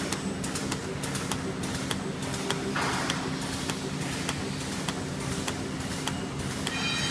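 Three-side-seal plastic bag-making machine running: a steady hum with rapid, irregular clicking from its mechanism, and a short hiss about three seconds in.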